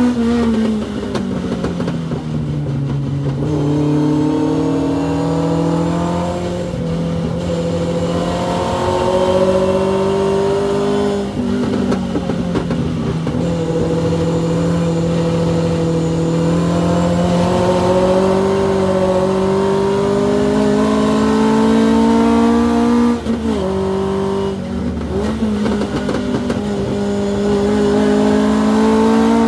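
Hillman Avenger four-cylinder race engine pulling hard. Its pitch falls about half a second in as the car slows for a corner, then climbs steadily, with two quick drops later where the driver lifts or changes gear before it climbs again.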